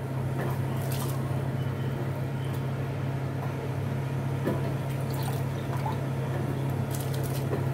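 Soaked basmati rice tipped into a steel pot of salted water boiling on a gas stove, with the water bubbling and lightly splashing and a few faint clicks. A steady low hum runs underneath.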